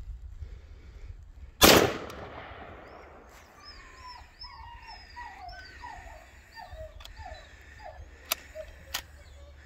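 A single rifle shot from a .30 carbine about a second and a half in, ringing out. It is followed by a faint run of about a dozen short repeated animal calls, roughly two a second, and two sharp clicks near the end.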